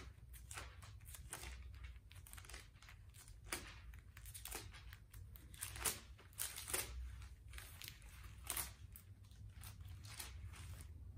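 Pages of a Bible turned by hand one after another: a string of short papery rustles and swishes.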